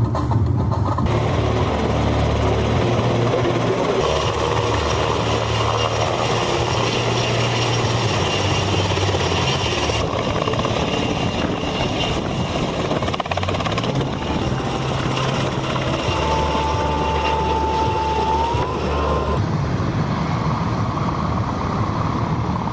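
Loud, continuous aircraft noise, chiefly a hovering military helicopter's rotor and turbine. The sound changes abruptly at several cuts, and a thin whine that rises slightly in pitch comes in about two-thirds of the way through.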